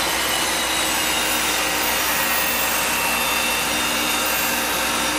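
Table saw ripping a board of reclaimed American chestnut lengthwise: a steady saw noise at an even level, with faint steady tones in it.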